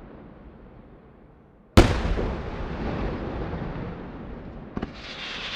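Aerial firework shells bursting: a fading rumble, then one sharp, heavy bang a little under two seconds in with a long rolling echo. Near the end a smaller double crack, followed by a high hiss.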